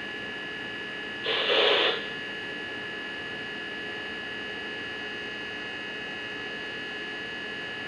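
Steady electrical hum with several thin high-pitched tones over a hiss. About a second in, a brief loud burst of static-like noise lasts under a second.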